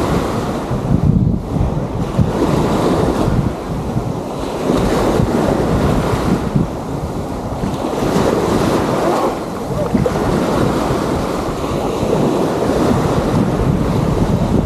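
Waves washing onto a sandy beach, a steady rushing surf, with wind buffeting the microphone.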